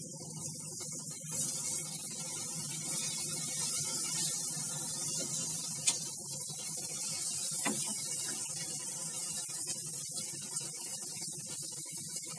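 Capsicum and potato pieces sizzling in oil in a wok while a silicone spatula stirs and scrapes them, the steady hiss swelling about a second in. A sharp tap of the spatula against the pan near the middle.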